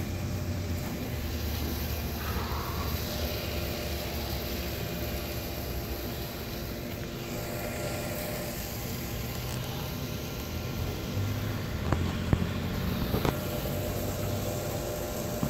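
Steady low rumble of outdoor background noise, with a few sharp clicks near the end.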